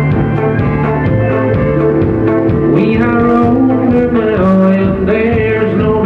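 Country band playing live: acoustic and electric guitars, electric bass, drums and pedal steel, with sliding notes a few seconds in.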